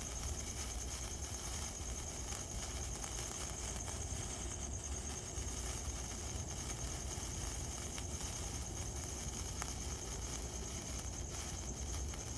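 Crickets chirping in a steady pulsing high trill over a constant low rumble, with the faint sparkling hiss and occasional ticks of a burning sparkler.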